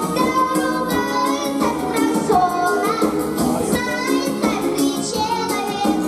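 A young girl singing a pop song into a microphone, holding wavering notes, over a backing track with a steady beat.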